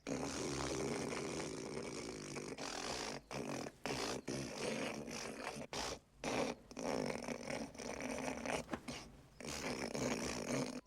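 A man hawking in his throat and snorting through his nose to work up phlegm for a spit. The rasping gather runs unbroken for the first couple of seconds, then comes in choppier pushes with short pauses between.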